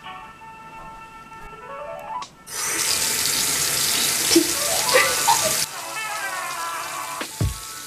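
Sink tap running, a loud even rush of water that starts about two and a half seconds in and cuts off sharply about three seconds later.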